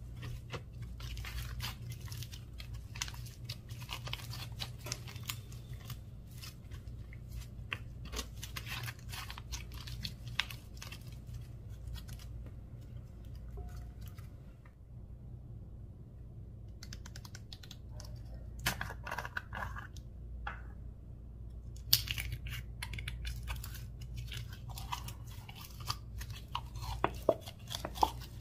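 Slime filled with mini balls being squished and mixed: dense crunching and crackling, which stops for a couple of seconds about halfway through, over a steady low hum.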